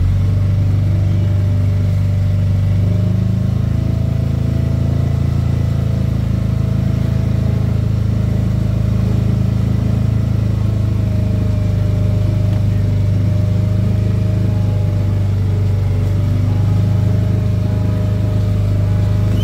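Motorboat engine running steadily at a low, even cruising speed, a constant deep drone.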